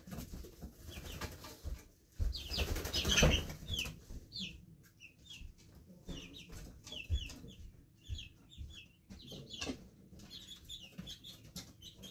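Young chickens peeping over and over with short, high, falling cheeps, with a loud flurry of wing flapping about two seconds in and a couple of low thumps later on.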